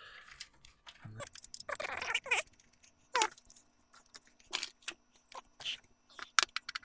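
Scattered clicks, clinks and rattles of a screwdriver, screws and the case panel as a DEC 3000 Model 500 tower computer is taken apart. The work is sped up about five times, so the handling noises come as quick, short ticks and chirps.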